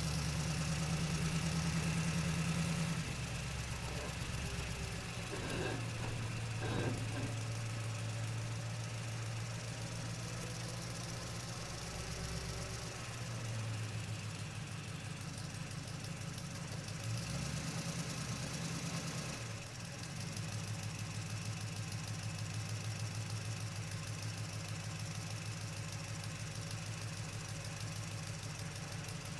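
Truck engine running as the truck is driven, its low note stepping up and down several times as the engine speed changes. Two brief thumps come about six and seven seconds in.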